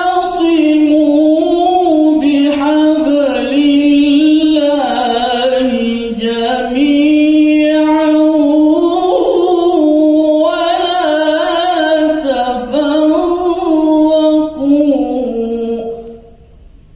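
Male qari reciting the Quran in the melodic tilawah style, amplified through a handheld microphone: long ornamented phrases with wavering held notes, stopping shortly before the end.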